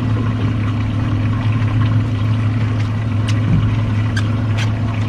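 Boat engine idling with a steady low hum. A few sharp clicks come about three to four and a half seconds in.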